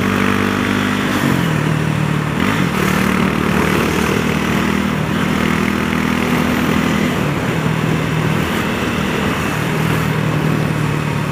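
Honda CB300R's single-cylinder four-stroke engine running steadily on the move, with wind rushing over the microphone. The engine note steps down about a second in, climbs again, and steps down once more about seven seconds in.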